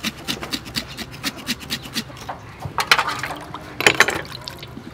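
A knife scraping the skin of a whole raw chicken in an aluminium basin, in quick rasping strokes several times a second. A few louder scrapes and knocks come about three and four seconds in as the bird is handled.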